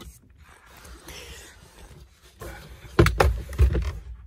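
Honda Civic plastic dashboard knocking and scraping against the car's interior as it is worked out of the cabin. Soft scuffs at first, then a run of loud knocks and thumps from about three seconds in.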